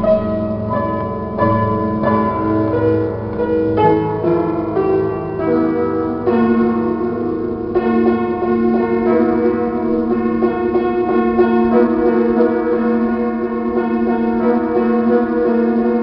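Solo piano music, bell-like in tone: quick repeated notes for the first few seconds, then longer held, ringing chords.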